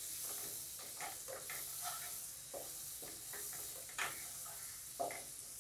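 Chopped onion and spices sizzling in hot oil in a non-stick kadhai as they are sautéed, stirred with a wooden spatula that scrapes and knocks against the pan now and then, most loudly about four seconds in.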